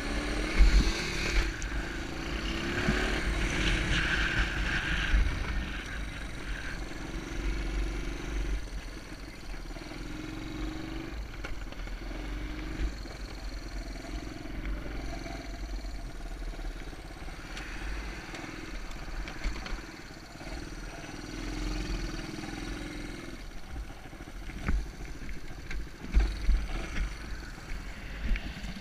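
Honda ATC 125M's small single-cylinder four-stroke engine running, its revs rising and falling as the throttle is worked on and off.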